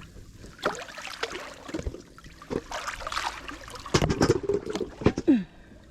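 Shallow water trickling and lapping on a rocky shore, with irregular knocks and clatters, most of them about four to five seconds in.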